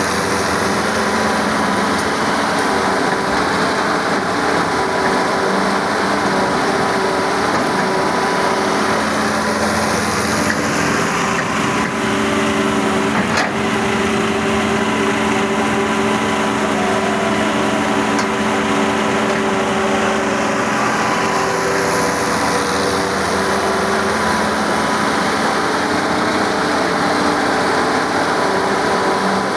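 Excavator's diesel engine running steadily, its note a little stronger through the middle.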